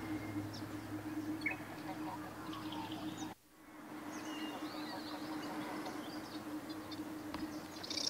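Riverside ambience of small birds chirping and calling in scattered short notes over a steady low hum, with a short break about three seconds in.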